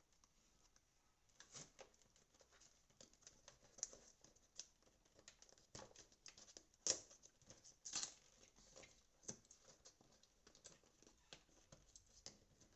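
Faint, scattered crackles and taps of a small cardboard product box being handled while stickers are peeled off it, with a sharper tap about seven seconds in.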